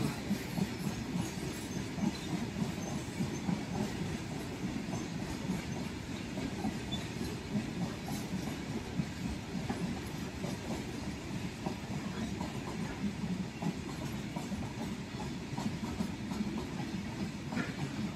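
Empty flat wagons of a Ro-Ro freight train rolling past, a steady rumble of wheels on the rails with faint clicks over the rail joints.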